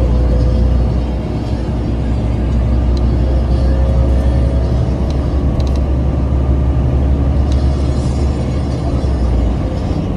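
Cabin noise of a 2011 New Flyer C40LF CNG transit bus under way: a steady low engine and road rumble with a faint whine and a few light rattles. The rumble eases slightly about a second in.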